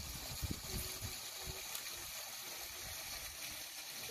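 Outdoor pond ambience: a steady hiss of moving water with irregular low rumbles of wind on the microphone.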